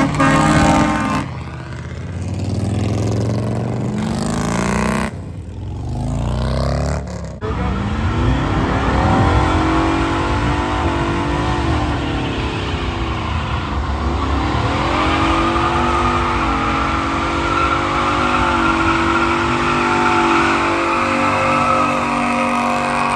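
Fourth-generation Chevrolet Camaro doing a long burnout: the engine is held at high revs, dips briefly about halfway through, then stays steady, while the spinning rear tires hiss and squeal. A few short bursts of vehicles driving past come before it.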